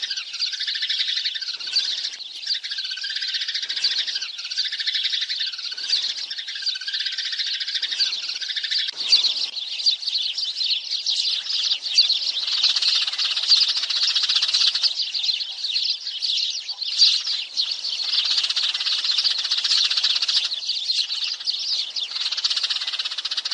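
A flock of sparrows chattering, with many overlapping high chirps and twitters. For the first nine seconds a call repeats about once a second, then the chirping becomes a denser, continuous chatter. This is the flock call used as a decoy to draw sparrows in.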